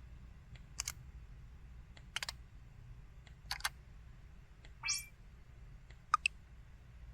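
Canu F1100 mobile phone's system sound effects: short electronic clicks about every second and a half, a brief rising chirp about five seconds in, and two quick ticks near the end.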